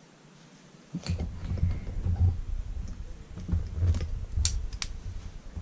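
Handling noise close to the microphone: low knocks and rubbing from about a second in, with two sharp clicks near the end.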